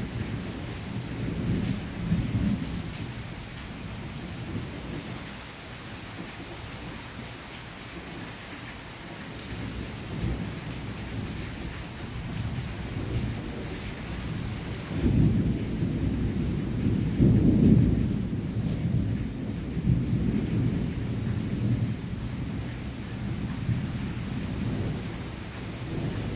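Steady rain falling on leafy foliage, with a low rumble that comes and goes, swelling loudest about fifteen to eighteen seconds in.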